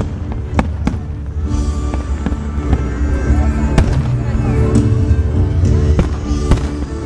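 Fireworks shells bursting in a run of sharp bangs at irregular intervals, over loud music playing along with the display.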